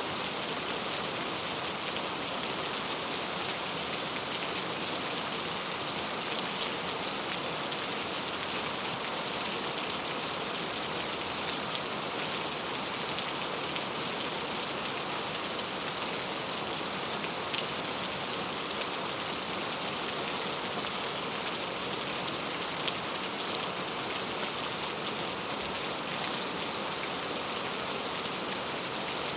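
Heavy rain falling steadily, with the patter of many drops hitting a surface.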